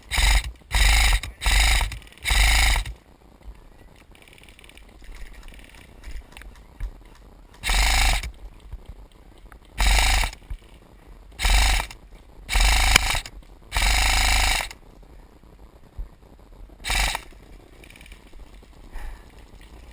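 KWA M4 airsoft rifle firing short, rapid full-auto bursts, about eleven in all: five in quick succession at the start, a run of five more a few seconds later, and a last short burst near the end.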